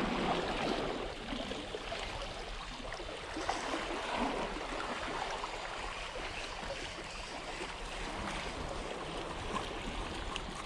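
Steady rush of sea water, waves and current washing at the shore, an even noise with no clear pattern.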